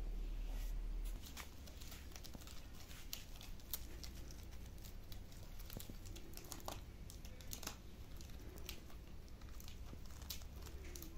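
Dry bark pieces crackling and rustling in irregular snaps and ticks as cats step and paw through the pile.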